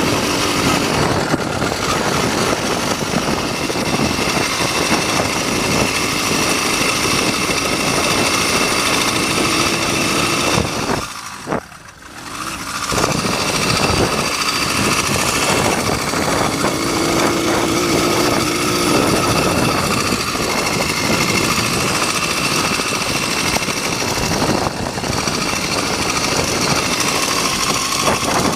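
80cc two-stroke motorized-bicycle engine running steadily under way. About 11 seconds in the sound drops away for a moment, then picks back up.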